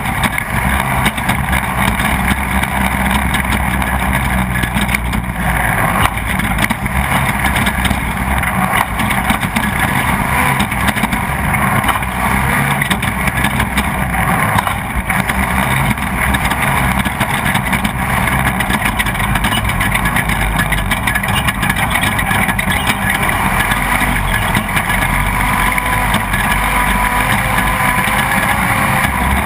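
Off-road race vehicle's engine running steadily under load, heard from on board, with many short knocks and rattles over the rough course.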